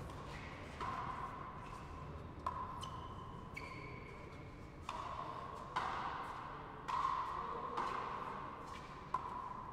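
Frontenis rally: the rubber ball cracking off rackets and the front wall about once a second, each hit ringing briefly in the enclosed frontón court. A few short high squeaks come about halfway through.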